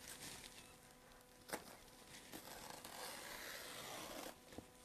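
Upholstery scissors cutting through black dust-cover fabric: a light click about a second and a half in, then a faint rasping cut lasting about two seconds.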